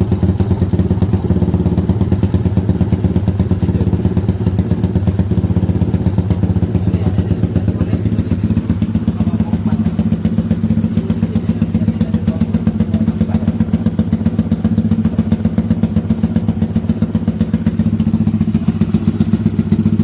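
Yamaha Y15ZR's single-cylinder four-stroke engine idling steadily through an aftermarket exhaust, with an even, unchanging beat.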